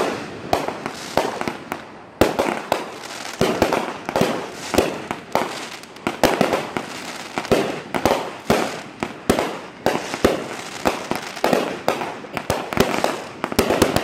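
Fireworks display: aerial shells bursting in a rapid, irregular run of bangs, several a second, with crackling between them.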